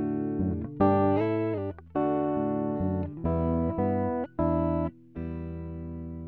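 Closing music: a plucked-string instrument playing chords, a new chord about every second, ending on a last chord about five seconds in that rings on.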